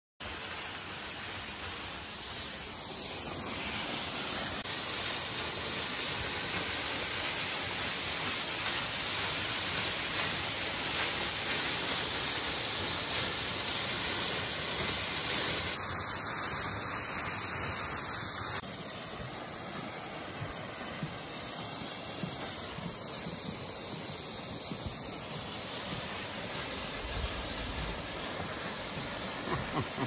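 Waterfall rushing as a steady noise. It grows louder a few seconds in and drops suddenly to a lower level about 18 seconds in.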